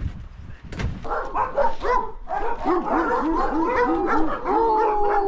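A dog yipping in a quick series of short high calls, about three or four a second, then one long whine near the end.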